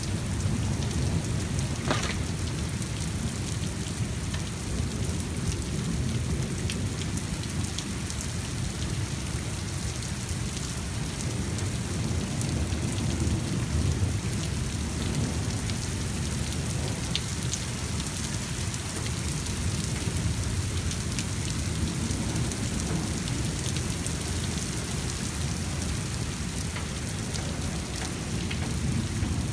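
Steady rain falling on wet pavement, with thunder rumbling low underneath throughout a thunderstorm.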